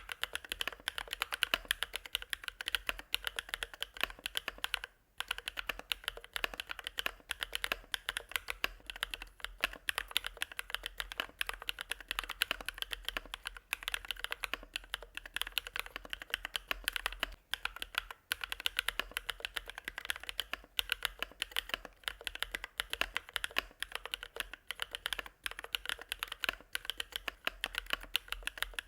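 Mechanical keyboard with hand-lubed Bsun Sunset Yellow linear switches being typed on continuously. The rapid keystrokes have a mid-to-low pitched clack, with a brief pause about five seconds in.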